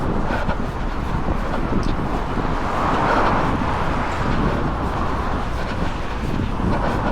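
Wind buffeting a small action camera's microphone during a run, over road traffic. A car passes, swelling and fading about three seconds in.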